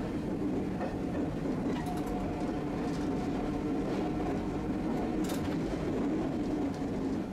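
Tosaden streetcar running, heard from inside the car: a steady rumble of wheels and motors with a faint tone and a few sharp clicks.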